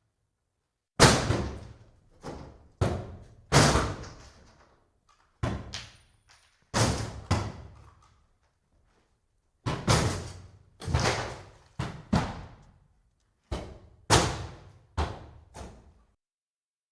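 Axe blows chopping into the wooden walls of a cabin: about twenty heavy, sharp chops in irregular pairs and clusters, each dying away quickly, with a longer pause about halfway through.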